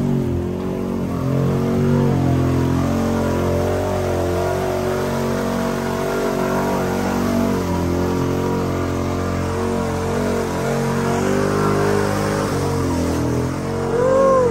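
Kawasaki Teryx side-by-side's engine pulling hard under steady throttle as it pushes through deep water, with the rush and splash of the wake against the body. A brief rising-and-falling whine near the end.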